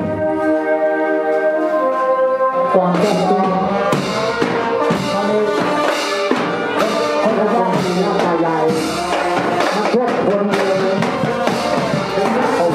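Brass band music: a held chord, then a lively rhythmic tune with drums from about three seconds in.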